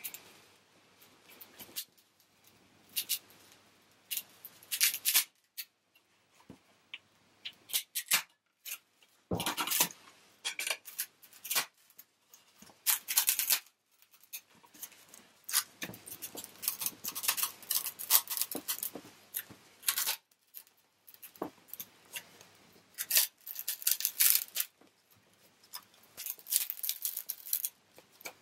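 Intermittent crackling and tearing of a cured fiberglass-and-balsa laminate panel being pried and peeled up from a waxed glass plate, coming in short irregular bursts with pauses between.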